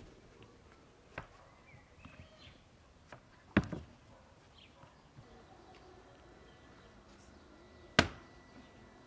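A few soft knocks from handling the dough and wooden board, then near the end one sharp thud as a sheet of lavash on a cloth bread cushion is slapped onto the hot inner wall of a tandoor. Faint bird chirps behind.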